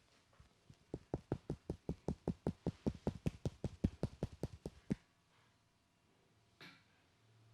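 Rapid, rhythmic hand tapping of a head massage: about two dozen quick strikes at around six a second, lasting some four seconds, then one softer knock near the end.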